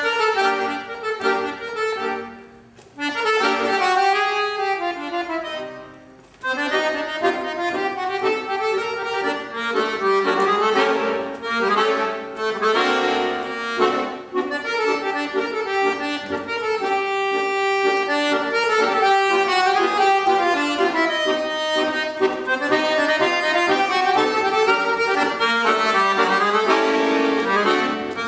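Accordion playing a tango: a melody over held chords, with short breaks about three and six seconds in.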